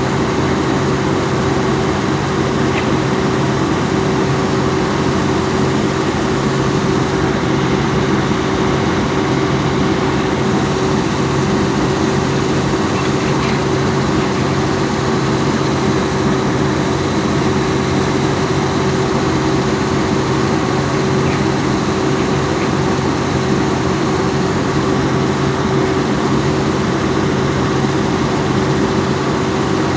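Diesel engine of a Volvo EC210B excavator running at a steady speed, a constant low hum that does not rise or fall.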